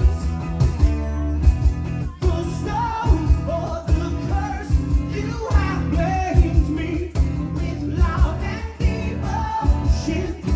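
Live acoustic rock band playing: a singing voice carries the melody over strummed acoustic guitars, with a steady percussion beat underneath.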